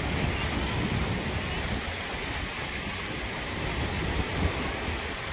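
Low waves washing in across the shallow, sloping end of a wave pool: a steady rushing wash of water.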